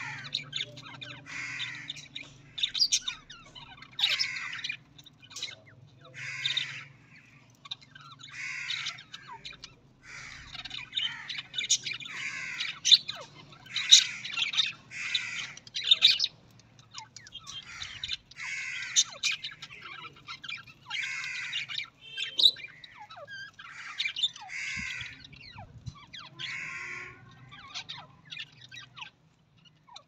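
Budgerigars chattering: a run of short, high chirps and squawks, roughly one or two a second, several birds calling over one another.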